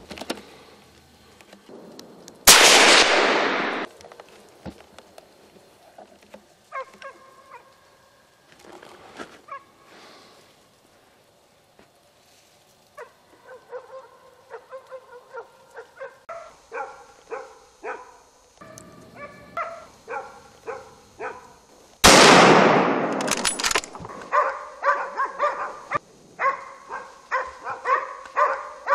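Two rifle shots, the first about two and a half seconds in and the second about twenty-two seconds in, each a sharp crack with a long echo through the woods. From about halfway, hunting dogs bark over and over in short yelps, fainter barks coming earlier as well.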